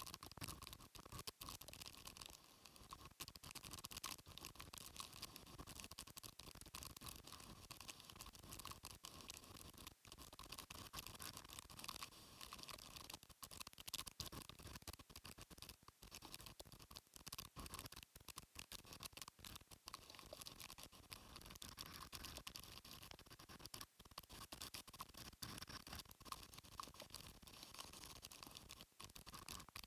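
Faint, scratchy crackling of typhoon wind and rain striking a phone's microphone, full of small dropouts.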